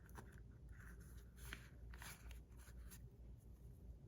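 Faint, soft scraping and rubbing, a few short strokes, as a zirconium fidget slider is handled and slid.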